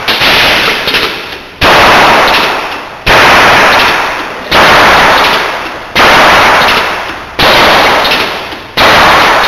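A homemade PLC-controlled Gatling gun firing loud single shots, evenly about one every second and a half, seven in all. Each shot is a sharp bang that trails off over more than a second.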